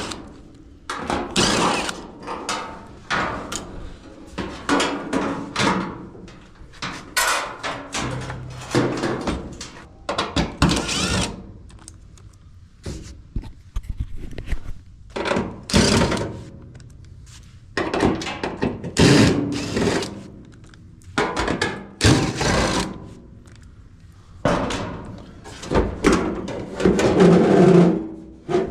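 Irregular thunks, knocks and scraping of tools and sheet-metal panels as a clothes dryer is taken apart at the back.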